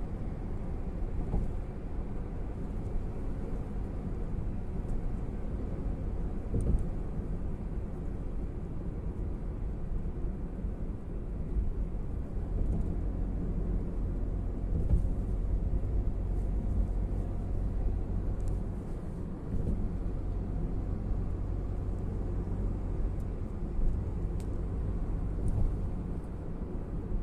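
Steady low rumble of an airliner cabin in motion: engine and airflow noise heard from inside, with a few faint ticks.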